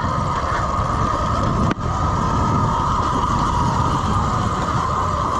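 Electric dirt bike's motor whining steadily under load on a steep dirt climb, over low rumbling noise, with a brief dropout about two seconds in.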